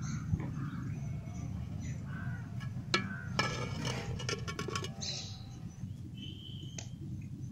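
Boiled peanuts in their shells clattering against the pot as it is tipped, a quick run of clicks lasting about a second and a half midway, over a steady low hum with a few short high chirps.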